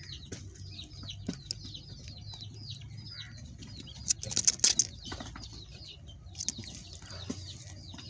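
Small birds chirping over and over in short falling chirps, with a brief burst of wing-flapping rustle about four seconds in.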